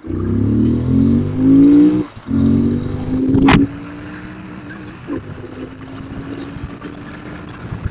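Royal Enfield Continental GT650's 648 cc parallel-twin engine revving up, its pitch climbing, breaking off briefly about two seconds in, then climbing again. A sharp crack comes about three and a half seconds in, after which the engine settles to a quieter steady note.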